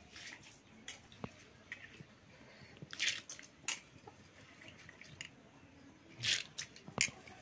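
Handfuls of wet, washed red lentils being squeezed out by hand and dropped into a metal pot of water: squelching and small splashes and drips, several short ones, loudest about three seconds in and again near the end.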